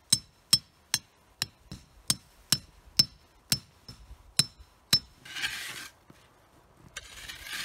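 A rebar tent stake being hammered through an ice crust into sandy ground: about a dozen ringing metal-on-metal strikes, a little over two a second, that stop about five seconds in. Then a shovel scrapes into snow twice.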